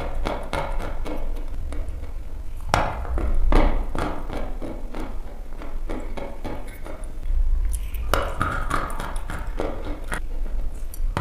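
Sticks of white chalk being bitten and chewed: a continuous run of sharp, crisp crunches, strongest about three seconds in and again around eight seconds in, over a steady low hum.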